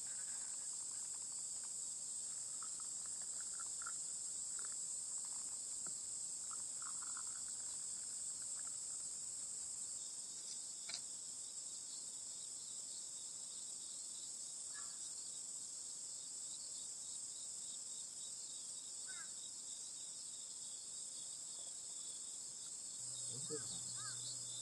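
A steady, high-pitched chorus of insects trilling without a break. A low hum joins near the end.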